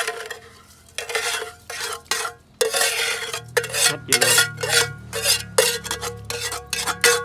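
A metal spoon scraping and clinking repeatedly against metal cookware, about two or three strokes a second, the metal ringing after each stroke, as chili satay sauce (sa tế) is spooned out for a fish marinade.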